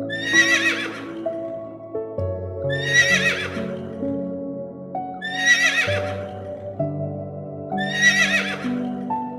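A horse whinnying four times, one quavering call about every two and a half seconds, over background music with long held notes.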